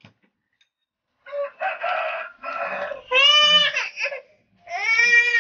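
Rooster crowing: a string of calls, the last two long and arching up then down in pitch, about a second and a half apart.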